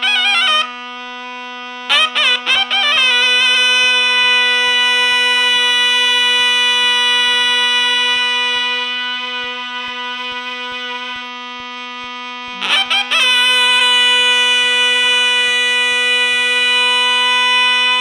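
Two zurnas playing a bozlak in free rhythm. One holds a steady low drone while the kaba zurna plays long, bright held notes, broken by quick ornamented runs at the start, about two seconds in, and again about thirteen seconds in.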